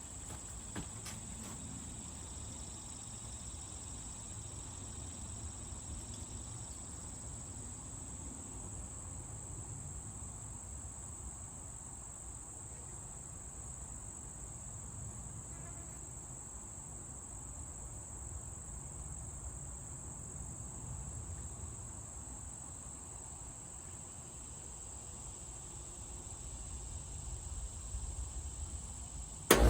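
Insects trilling steadily at one high pitch, over low wind rumble on the microphone.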